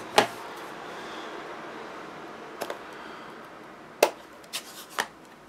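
Hard clicks and knocks of a clear acrylic stamping block being handled on a craft work mat: one sharp knock just after the start, a faint double tap about two and a half seconds in, and a few clicks near the end.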